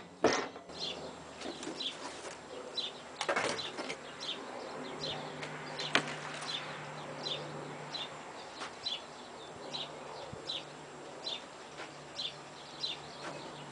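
A bird repeating a short high chirp about twice a second. Wooden panels are handled, with a sharp knock just after the start and a scraping rustle about three seconds in, as the old wooden pattern is lifted off the plywood sheet.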